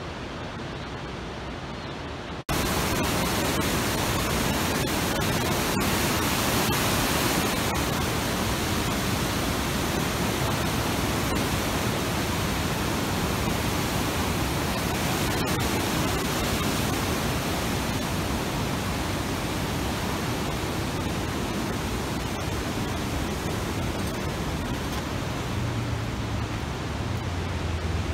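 Steady, loud rushing noise spread evenly from low to high pitch, cutting in abruptly about two and a half seconds in after a quieter, duller hiss; a low rumble joins it near the end.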